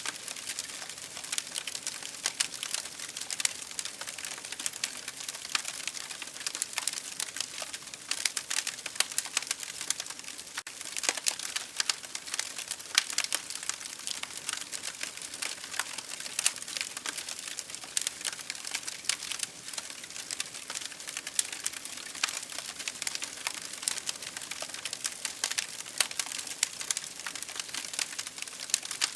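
Firewood burning in a campfire, crackling: a steady, dense run of small irregular pops and snaps, with a louder snap here and there.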